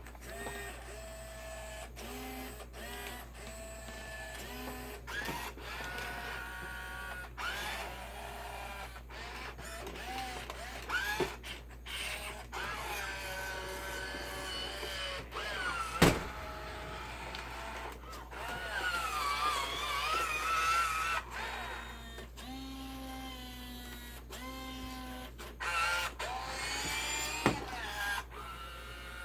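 Robosapien V2 toy robot's gear motors whirring in many short bursts, some rising and falling in pitch, with clicks between them and a sharp knock about 16 s in and again near the end.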